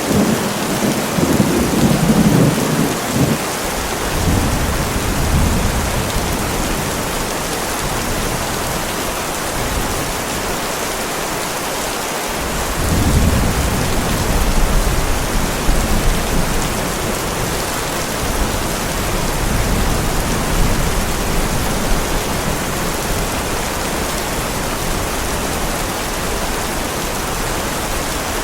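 Heavy rain falling steadily, with two rolls of low thunder: one rumbling in the first few seconds, a longer one starting about halfway through.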